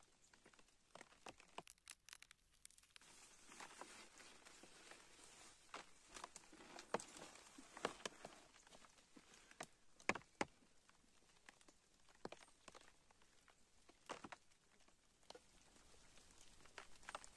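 Faint, scattered crackles and rustles of footsteps and movement on dry tree-fern litter, with the crinkle of a plastic bag being handled.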